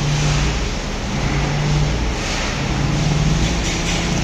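Steady running of an engine or machine: a constant hiss with a low hum that swells and fades.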